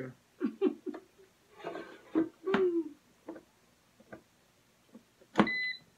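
Brief murmured mouth sounds, then near the end a sharp click and a single electronic beep of about half a second from an air fryer's control panel as its power button is pressed.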